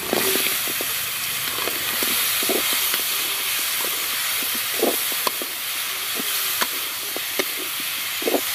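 Fish pieces sizzling steadily in hot masala in a kadai as they are sautéed, with a metal spatula scraping and knocking against the pan every second or two as the fish is turned in the spices.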